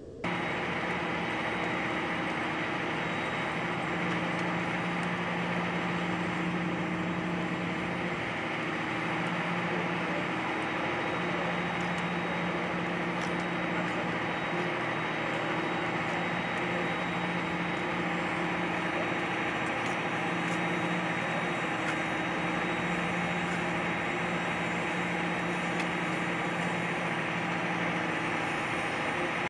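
Steady aircraft engine drone: a constant rushing noise with a low hum underneath, starting abruptly and holding on without change.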